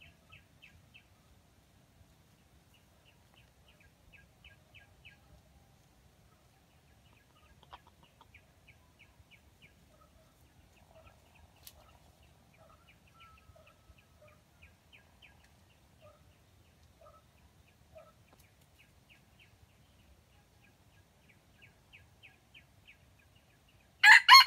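A red junglefowl rooster starts a loud crow just before the end. Before it there are only faint sounds: short trains of quick high ticks repeating every second or two, and a few soft low clucks.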